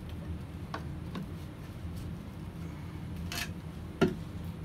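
Black plastic drain-pipe fittings being handled and fitted together: light clicks and a brief scrape, then one sharp plastic knock about four seconds in, over a steady low hum.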